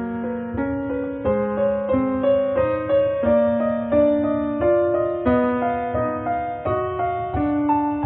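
Background music: a slow, gentle piano piece, single notes and chords struck about once or twice a second, each fading before the next.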